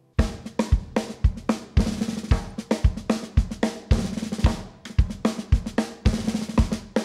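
Drum kit playing a steady groove, with bass drum beats about twice a second under snare and hi-hat strokes. It starts abruptly just after the opening.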